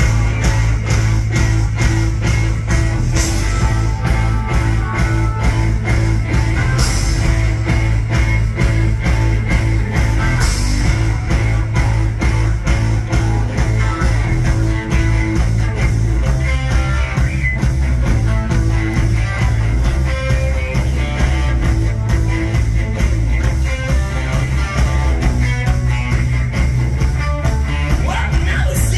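Live rock band playing loud through a big stage sound system: electric guitars over heavy bass and a steady drum beat, with cymbal crashes every few seconds, heard from within the crowd.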